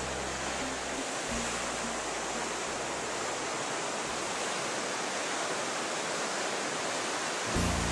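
Steady rushing of ocean surf breaking over rocks along a beach. Background music fades out in the first second or so and comes back near the end.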